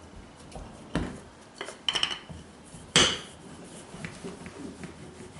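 A wooden rolling pin rolling out shortcrust pastry on the metal base of a tart tin, knocking and clinking against it a few times; the loudest knock comes about three seconds in and has a short metallic ring.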